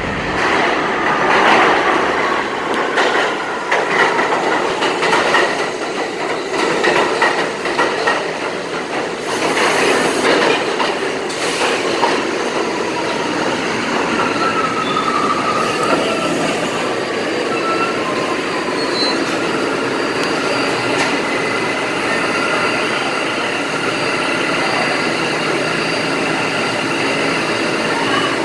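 New York City subway train running through an underground station: wheels clatter over the rail joints for the first dozen seconds under a high whine, then the sound settles into a steady rumble with faint high tones.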